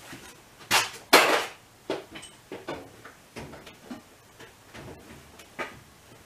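Knocks and clatter of a spirit level being handled and set aside: two sharp knocks just under and just over a second in, the second the loudest with a brief rattle, then a few lighter knocks and taps.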